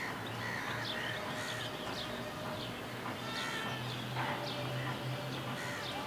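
A chorus of birds calling, many short chirps and calls overlapping, over a low steady hum.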